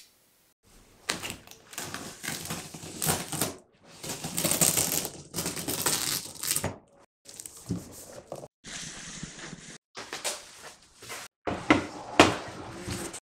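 Cardboard and packing material scraping, rustling and crinkling as a large e-bike shipping box is cut and opened, with a few sharp knocks. The sound comes in short bursts broken by sudden silences.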